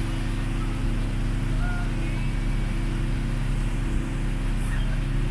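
Passenger boat's motor running steadily, a low even drone.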